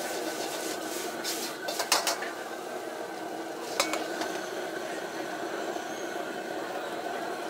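Noodles being stir-fried in a steel wok over a high gas flame: a steady hiss of the burner and frying, with the metal ladle clanking against the wok a few times, about two seconds in and again near four seconds.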